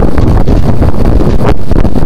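Strong wind buffeting the camera's microphone: a loud, continuous low rumble.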